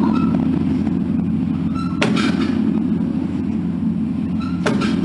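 Large temple bell with its deep hum ringing on steadily. It is struck again about two seconds in and twice in quick succession near the end.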